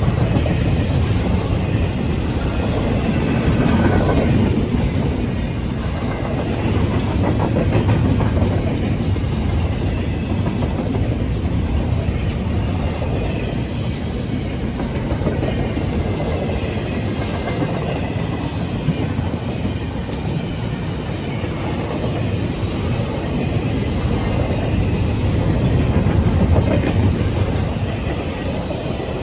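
A train rolling past close by: a steady rumble of railcars with wheels clicking over the rail joints, swelling and easing a little along its length.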